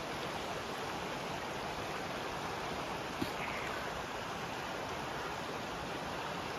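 Steady rush of a creek running over rocks, with a single brief click about three seconds in.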